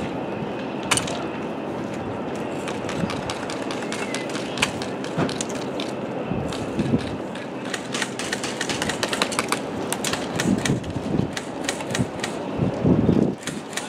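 Airsoft guns firing: scattered sharp clicks and short rapid strings of shots, thickest in the middle, over steady outdoor background noise. A louder low thump near the end.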